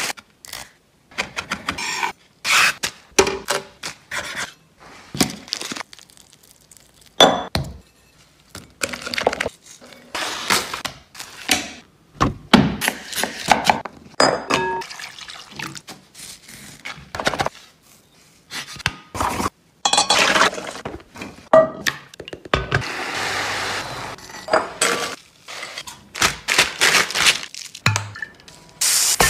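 Close-up kitchen sounds in quick succession: aluminium foil being handled near the start, then many short knocks and clinks of utensils, dishes and food on a board, with a few seconds of steady hiss about two-thirds of the way through.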